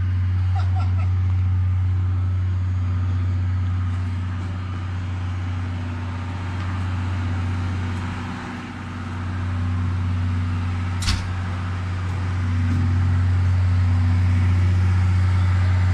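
Chichibu Railway Deki electric locomotives moving slowly past, giving a steady low hum, with one sharp click about eleven seconds in.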